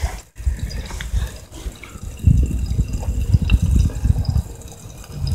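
Steak sizzling in a lidded cast iron pan over a small twig-burning wood stove, with a few faint crackles about a second and a half in. An uneven low rumble runs underneath and is the loudest sound.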